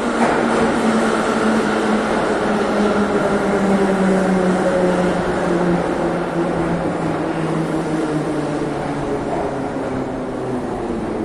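Metro train pulling into an underground station, its whine falling slowly in pitch as it slows, over the rumble of the wheels, echoing in the vaulted platform hall.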